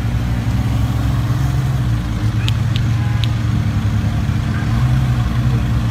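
Sports car engines running at low speed, a steady deep rumble, with three short sharp clicks about halfway through.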